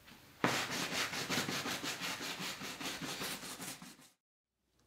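A hand brush scrubbing sawdust back and forth over a leaded stained-glass panel, in quick strokes about three or four a second, scouring off the surplus glazing putty. It cuts off suddenly near the end.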